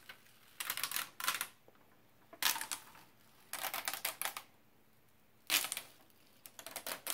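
Thin gold transfer foil crackling as it is slowly peeled back off an adhesive sticker sheet, in several short crackly bursts with quiet pauses between.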